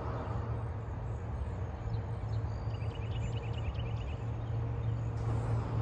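Outdoor background noise: a steady low hum, with a short, faint run of quick high ticks about halfway through.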